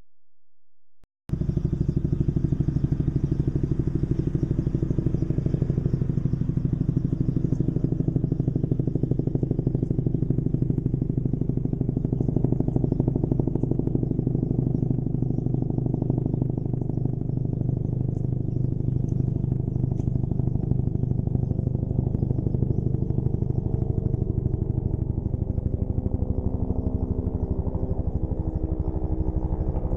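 Bell helicopter passing overhead: steady rapid chop of the main rotor blades over the turbine's hum. It starts abruptly about a second in, and its pitch drifts near the end.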